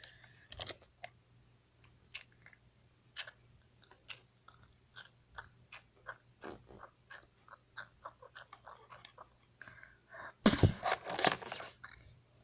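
Plastic toy figures and playset pieces being handled: scattered light clicks and taps, with a louder burst of clattering about ten and a half seconds in.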